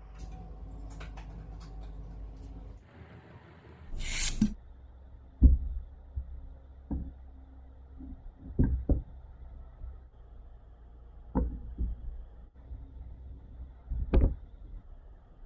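Wooden blocks and a wooden board being set down on a mat: a series of about seven dull wooden knocks, spaced a second or two apart. A brief scraping rush comes about four seconds in.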